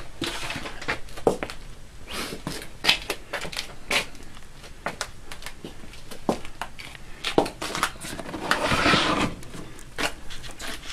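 Scattered light knocks, clicks and rustling from a camera being carried and things being handled, with a longer crinkling rustle about nine seconds in.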